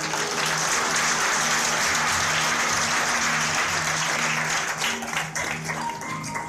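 Audience applauding, starting at once and dying away after about five seconds, with music playing underneath.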